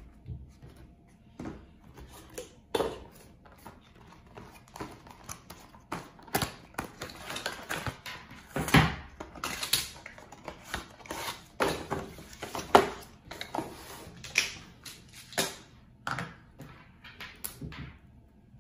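Unboxing handling sounds: irregular clicks, knocks and rustles as a projector is set on a table and its packaging, power adapter and coiled cable are handled, the loudest knocks about nine and thirteen seconds in.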